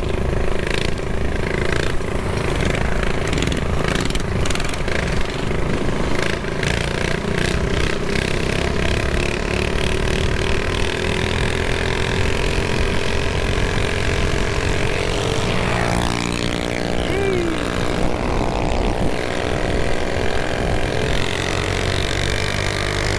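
Mini bike engine running steadily under way, with wind rushing over the microphone; the engine note rises and falls for a few seconds about two-thirds of the way through.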